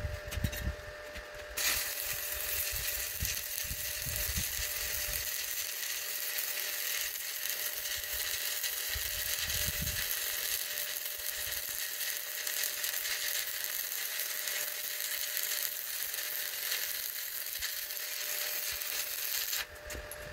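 Stick-welding arc burning on a 1/8-inch 7018 low-hydrogen rod: a steady crackle that strikes up about a second and a half in and runs for some eighteen seconds before the arc is broken near the end.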